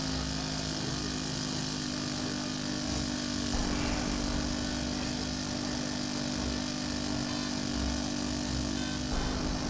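An engine running steadily at an unchanging pitch, a continuous hum.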